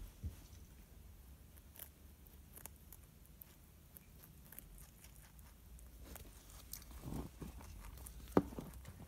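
Dutch rabbit chewing a broccoli head: faint, crisp crunching and nibbling clicks scattered throughout, over a low steady hum. A few stronger crunches come late, with one sharp click near the end.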